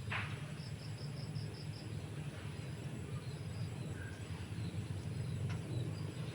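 An insect chirping: a quick run of about six short, high pulses about a second in, with a few fainter chirps later, over a steady low hum. A brief rustle right at the start.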